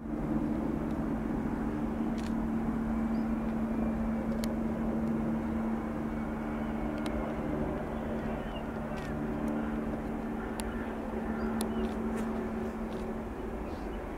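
Jet aircraft on landing approach, heard at a distance: a steady engine drone with a low hum, and a few faint ticks.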